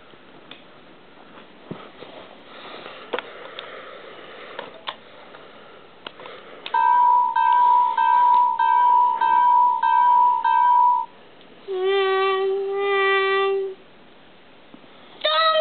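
Electronic sound effects from a battery-powered toy railroad crossing: a bell-like ding pulsing about one and a half times a second for about four seconds, then a lower held electronic tone in two parts, with another loud tone starting near the end. Before them, light clicks and knocks of wooden toy train cars being handled.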